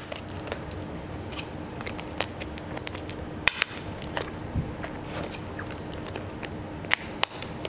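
Disposable electrodes being pushed onto the snap connectors of PhysioFlow cardiac-impedance leads: scattered sharp clicks as the snaps seat, with light handling noise, over a steady low hum.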